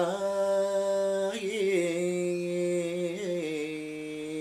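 A man singing a Tamil devotional hymn to Murugan, drawing out the words on long held notes with a few small melodic turns.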